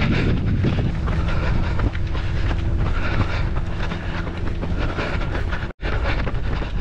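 Wind buffeting the microphone of a camera carried by a runner mid-race, with a pulse about once a second that follows the running motion. The sound cuts out for an instant near the end.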